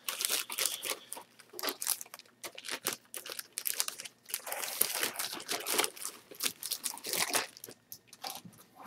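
Cellophane wrapping around plastic model-kit sprues crinkling and rustling as it is handled, a dense run of irregular crackles.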